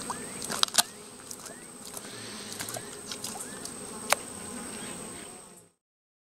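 Insects buzzing in a steady high-pitched drone, with short chirps and a few sharp ticks over it. The sound cuts off abruptly near the end.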